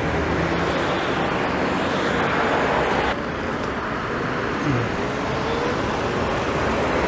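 Wind and road noise on a moving electric scooter, with car traffic around it. The noise drops about three seconds in as the scooter slows almost to a stop, and a faint rising whine follows as it speeds up again.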